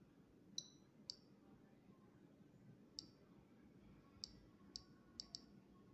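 Touchscreen thermostat panel giving a short, high-pitched click at each finger tap as the set temperature is stepped down and back up: seven faint clicks, irregularly spaced, the last two in quick succession.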